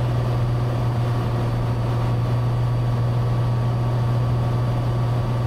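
Cessna 182's piston engine and propeller droning steadily inside the cabin on final approach.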